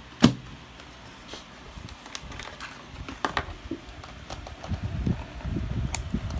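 Cables and plastic connectors being handled and plugged in. There is a sharp click just after the start, a few lighter knocks, then a low rustling rumble of handling over the last second and a half.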